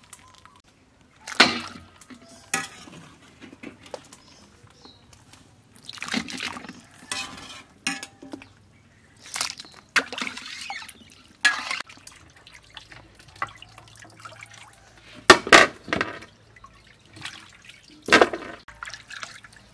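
Water splashing and sloshing in a stainless steel bowl as blanched cow leg pieces are rinsed by hand. The splashes come irregularly with pauses between, the loudest ones about three quarters of the way through.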